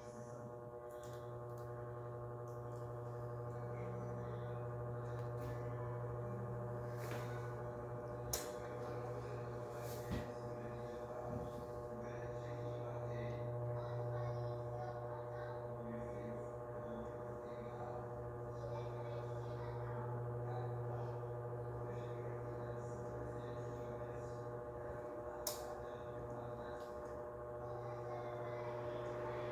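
Electric table/wall fan running: a steady motor hum of several fixed tones over a low drone, picking up over the first few seconds. A few sharp clicks come through now and then.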